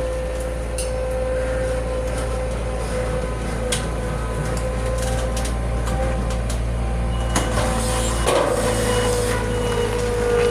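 Digger's diesel engine running with a steady whine as the machine comes down off the truck. A clatter comes about eight seconds in, then short repeated warning beeps.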